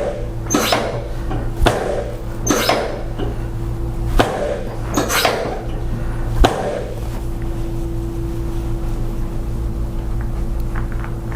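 A steady low hum with a series of sharp knocks, roughly one a second, that stop about seven seconds in.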